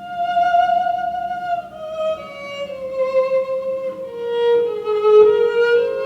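Violin playing a slow melody. It opens on a long held note and steps downward, and a second, lower note joins about four seconds in.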